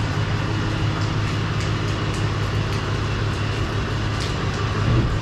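Pickup truck engine idling steadily as the truck creeps back under a truck camper, a continuous low hum with a few faint ticks over it.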